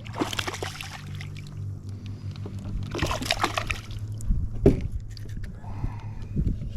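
Water splashing and sloshing beside a kayak as a hooked bass thrashes, in two bursts, the second about three seconds in, followed by a few knocks against the hull, over a steady low hum.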